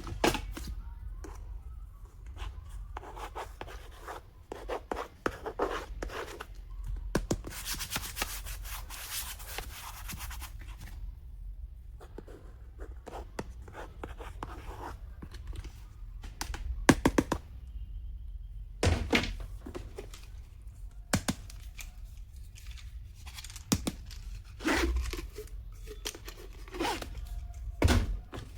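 Stationery packaging being handled and torn open, with a stretch of tearing about eight seconds in. Scattered clicks and knocks come as the items are handled and set down, with a few louder knocks later on.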